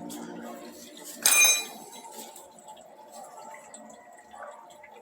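Brastemp Ativ washing machine's electronic console giving one short, high beep about a second in, over a low hum from the machine as it runs.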